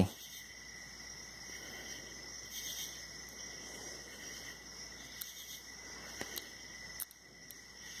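A handful of faint, light clicks from a thin steel hook pick working the pin tumblers of a Yale padlock under tension, mostly in the second half, over a steady high-pitched background tone.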